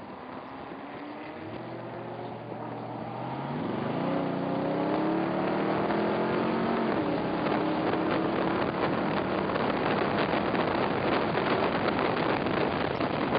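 Onboard sound of a Cobra roadster's V8 at racing speed. The engine note is steady at first, then climbs under acceleration from about three seconds in and falls back about seven seconds in with an upshift. After that, wind buffeting on the microphone in the open cockpit largely covers the engine.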